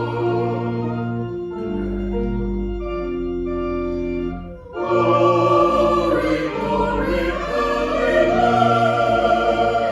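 Choir singing with organ accompaniment in sustained chords. The music thins out briefly about halfway through, then comes back fuller and louder.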